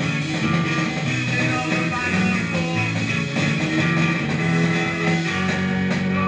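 A garage-rock record with electric guitar playing through a 1957 Seeburg jukebox.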